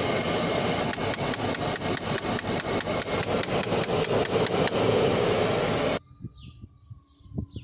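Dodge Caravan's HVAC blend-door actuator clicking rapidly, about five clicks a second, over the steady rush of the A/C blower. This clicking is the sign of a broken actuator, the one that opens and closes the door between cold and hot air. The sound stops abruptly about six seconds in.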